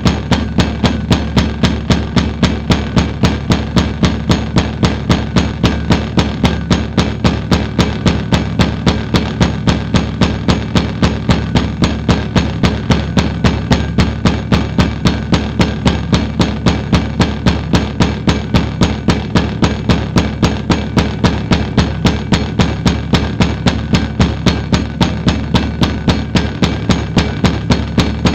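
A low, steady drone with a sharp, even pulse about three times a second, played through a loudspeaker to drive the vibrating surface.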